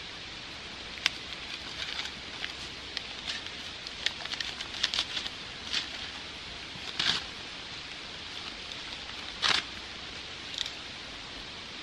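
Paper sack of concrete mix being handled and opened at a fence post: a string of short paper crinkles and rustles, with two louder rustles about seven and nine and a half seconds in, over a steady background hiss.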